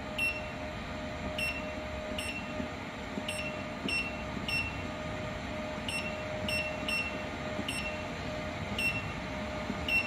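Touchscreen control panel of an automatic coaxial cable cutting and stripping machine beeping once for each key tap as a length value is entered. About a dozen short, identical high beeps come at uneven intervals over a steady faint hum.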